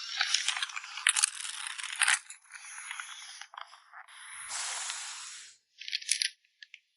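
Packing materials for photocards rustling and crinkling, with sharp clicks and crackles, then a smoother swelling hiss about four seconds in and a few short rustles near the end.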